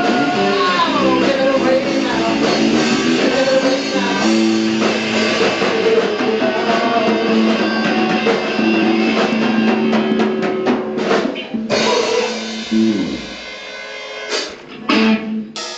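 A band playing live: electric bass, electric guitar and drums, loud and dense, stopping about thirteen seconds in, followed by a few separate struck notes as the song ends.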